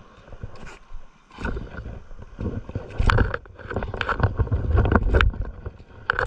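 Wind buffeting the microphone in gusts, strongest in the middle, with a few sharp knocks as fishing gear is handled.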